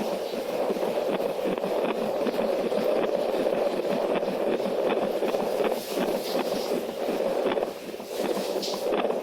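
Fetal heartbeat picked up by a handheld Doppler ultrasound probe and played through its speaker: a steady, pulsing whoosh that dips briefly about eight seconds in.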